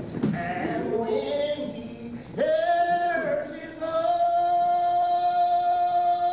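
Slow, unaccompanied Old Regular Baptist hymn singing. The voices slide through ornamented turns at first, then draw out long held notes, the last held steadily to the end.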